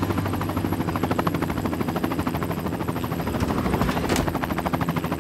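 Helicopter running, its rotor blades beating in a fast, steady chop, with one brief sharp crack about four seconds in.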